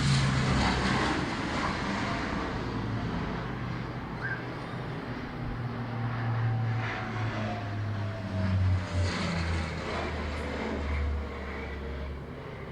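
Aircraft flying past, its engine drone steady and low, with a faint tone sliding slowly down in pitch as it goes by and a swell in loudness about nine seconds in.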